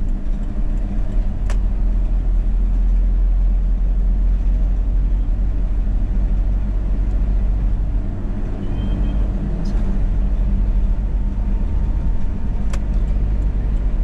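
Steady low rumble of a car's road and engine noise heard from inside the cabin while driving, with a few light clicks.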